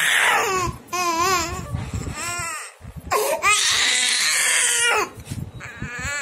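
A toddler crying: a string of loud, wavering wails with short breaks for breath between them, the longest starting about three seconds in and lasting nearly two seconds.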